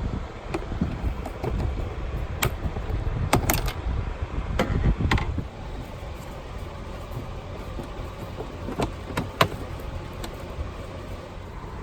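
Scattered sharp clicks and knocks, about eight in all and the loudest a few seconds in and near the end, over a steady low rumble.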